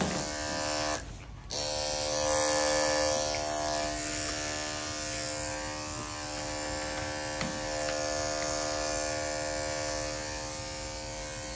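Electric dog grooming clippers running with a steady buzz as they cut the hair on a dog's face. The buzz drops out briefly about a second in, then carries on.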